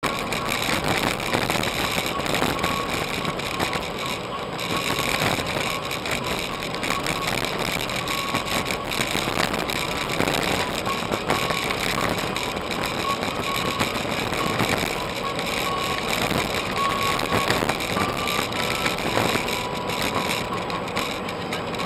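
Steady road and engine noise of a moving car, as heard from inside the cabin, with small rattles. A faint short high tone comes and goes several times.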